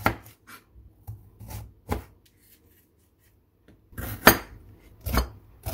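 Chef's knife slicing through a bitter gourd and knocking on a plastic cutting board: light cuts about two a second, a pause of a second or so, then louder, slower strokes from about four seconds in.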